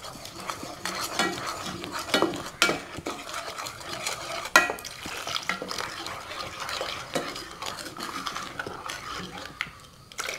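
A white spoon stirring a paste of herbal medicine powder and water in an enamel pot, scraping and clinking against the pot, with a few sharper knocks.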